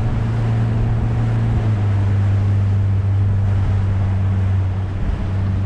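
Motorboat engine running steadily under way, a low hum that drops slightly in pitch about two seconds in, with wind on the microphone and water rushing past the hull.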